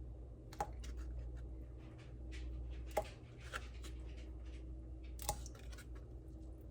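Light clicks and knocks of hands sorting berries soaking in a bowl of water, three louder clicks spread out with fainter ones between, over a low steady hum.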